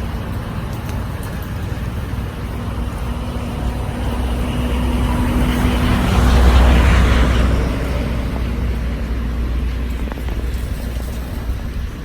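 A motor vehicle passing by, a low rumble that swells to its loudest about six to seven seconds in and then fades away.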